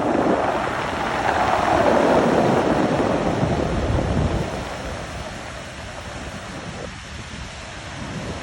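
Ocean waves crashing on rocks: a loud rush of surf for about four seconds, then dying down to a quieter wash as the water is sucked back out, building again near the end.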